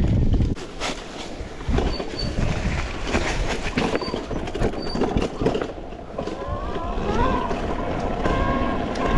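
Arctic Leopard electric e-bike being ridden over rough ground: frequent clattering knocks and rattles, then from about six seconds in the motor's whine rises in pitch and holds steady as the bike picks up speed.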